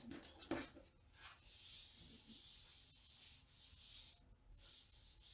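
Faint rubbing of a wet board-eraser sponge scrubbing chalk paste off a silk-screen stencil transfer.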